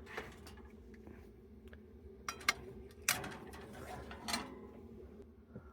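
Clicks and clanks of a small camper oven being opened and a baking pan handled, the sharpest clank about three seconds in, over a steady low hum.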